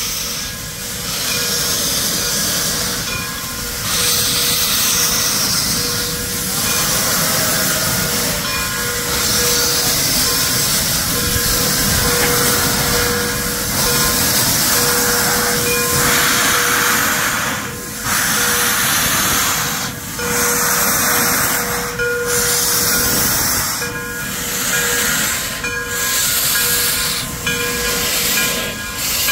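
Frisco 1630, a 2-10-0 Decapod steam locomotive, hissing steam loudly and steadily. In the second half the hiss drops briefly every couple of seconds.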